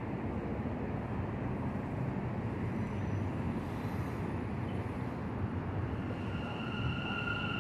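Elevated subway train rolling in on the steel track with a steady low rumble; a high steady squeal sets in about six seconds in and grows as it slows.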